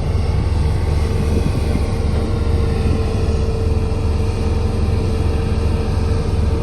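Heavy diesel machinery engine running steadily: a constant low rumble with a steady whine on top.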